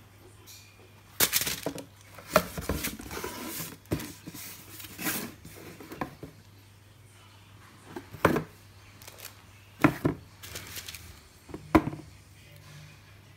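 A cardboard shoebox and foam sneakers being handled on a wooden tabletop: irregular knocks, scrapes and rustles, with a low steady hum underneath.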